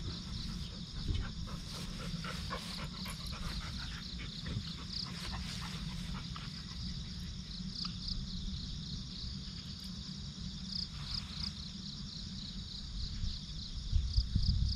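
Insects chirping outdoors in a steady, high, pulsing trill, over a constant low rumble.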